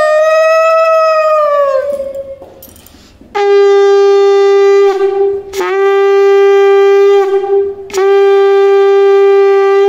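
Conch shell (shankha) blown for the ritual. A higher note swells and sags and fades about two seconds in. Then come three long, steady, lower blasts with short breaks between them, the last still sounding at the end.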